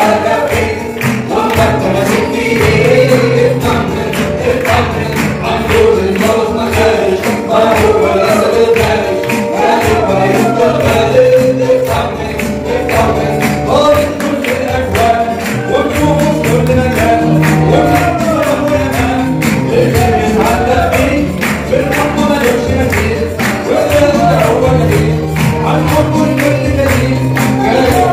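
Live church worship music: singers at microphones lead a congregation in a song over a steady percussion beat and low accompanying notes.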